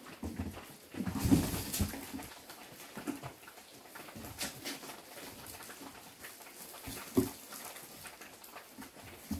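Kittens scuffling and playing among cardboard boxes and dry grass stalks: rustling with scattered thumps, the loudest cluster about a second in and another sharp thump near seven seconds.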